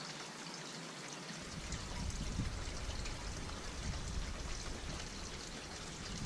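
A man drinking beer from a pint glass in long swallows, over a steady hiss, with a low rumble coming in about a second and a half in.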